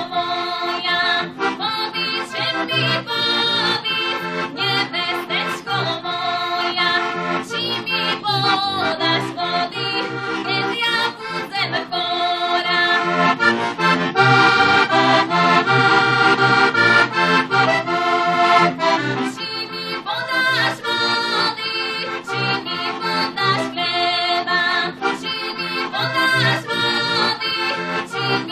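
Heligonka, the Slovak diatonic button accordion, playing a traditional folk tune: a quick melody over a regular bass-and-chord pulse, growing a little louder about halfway through.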